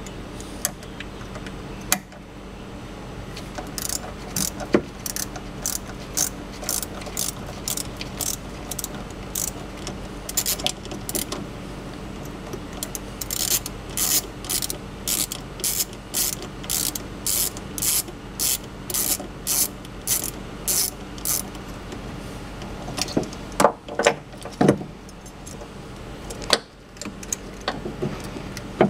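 Ratcheting screwdriver clicking about twice a second for some seventeen seconds as it backs out a screw holding the F1 pump motor. A few louder knocks follow near the end as the motor is worked loose from the pump.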